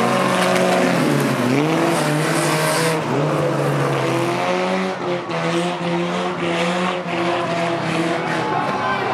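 Several banger racing cars' engines running hard together, their pitches holding and shifting as the drivers lift and accelerate; one drops in pitch and climbs again about a second and a half in, over a haze of tyre and track noise.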